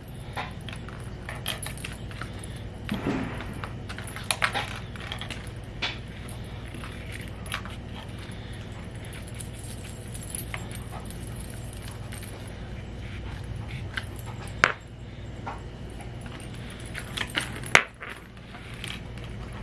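Hands handling a smartphone and a cleaning wipe: scattered small clicks and taps with light rustling as the screen is wiped, over a steady low hum.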